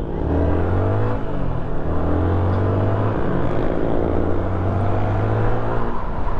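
Yamaha motor scooter's engine running on the move, its pitch climbing, dipping about a second in, then climbing again as the throttle is worked, over a steady low rumble.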